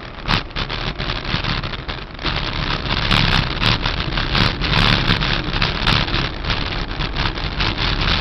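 Wind and road noise on a moving camera: a steady rush with crackling buffets, louder from about two seconds in.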